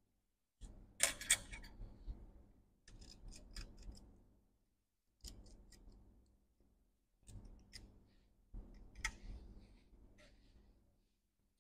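Short bursts of small clicks and scrapes from a tool and fingers working at a MacBook Pro's logic board as its cable connectors are freed, about five bursts with brief gaps between them. The sharpest cluster of clicks comes about a second in.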